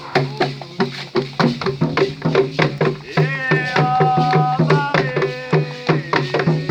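Candomblé ritual music: hand drums beating a fast, steady rhythm, with a voice singing long held notes in the middle.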